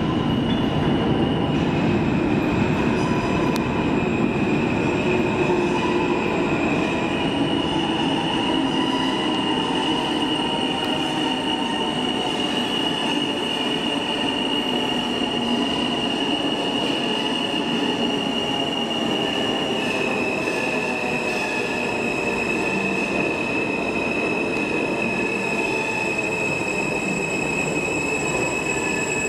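R160 subway train pulling into the station and running along the platform, a steady rumble with a high steady squeal that steps up and down in pitch a few times.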